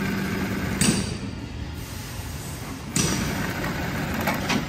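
Mattress tape edge machine's Weitu 300U chain-stitch sewing head running steadily as it sews binding tape onto a mattress edge. Two sharp knocks come about a second in and about three seconds in, with a few lighter clicks near the end.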